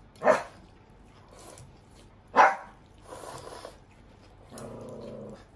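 A dog barking twice, about two seconds apart.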